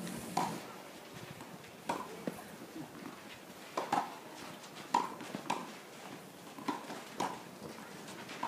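Tennis rally on a clay court: sharp pops of racquets striking the ball, coming irregularly about a second apart, with softer ball bounces between them.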